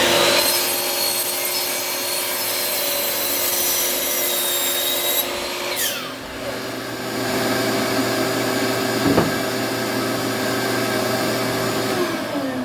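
Electric saw cutting wood: the motor spins up and runs through the cut, winds down about halfway through, then runs again and winds down near the end.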